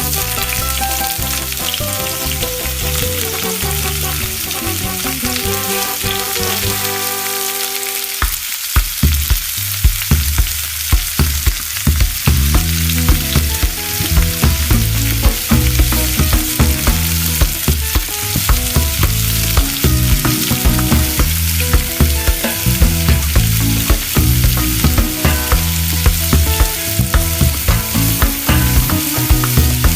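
Food frying in hot oil, a steady sizzle, over background music that picks up a beat about eight seconds in.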